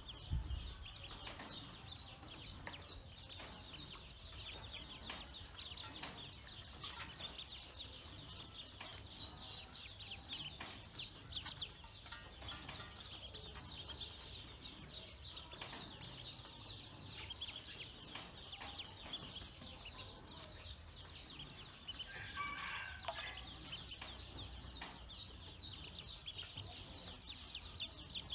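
A group of Pekin ducklings peeping continuously in a high, dense chorus. One lower, fuller call stands out about two-thirds of the way through.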